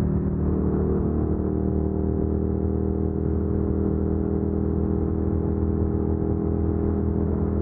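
Suzuki SV650X's 645 cc V-twin engine running steadily at cruising speed, its note sinking slightly over the seconds, under a steady rush of wind noise.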